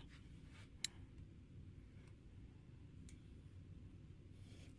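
Near silence: room tone with a faint low hum, one sharp click about a second in and a few fainter clicks.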